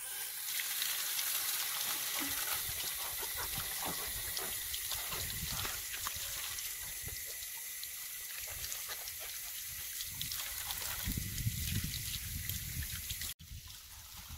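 Water running from a tap and splashing over a cabbage as it is rinsed by hand, pouring into a concrete trough. The sound drops suddenly to a quieter stream about a second before the end.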